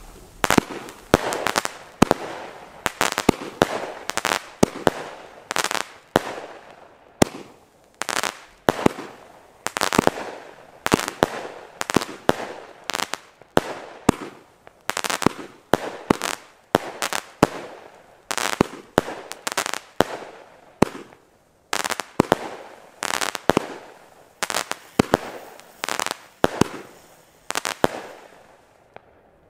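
Nico Kapstadt firework battery firing its shots in quick succession, sharp bangs of rising shells bursting overhead at roughly two a second, stopping near the end.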